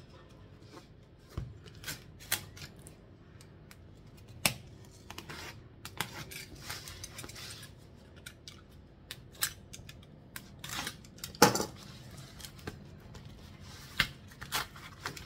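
A cardboard mailer being cut open with a utility knife and handled: irregular clicks, scrapes and cardboard rustling, the loudest scrape a little past the middle.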